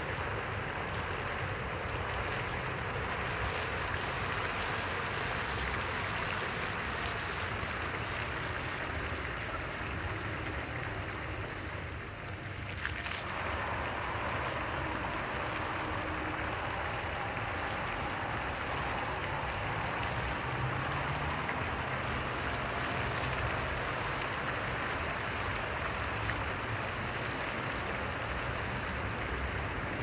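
Lighted fountain's water jets splashing steadily into the basin, a continuous rushing sound. About twelve seconds in, the splashing briefly thins and then comes back.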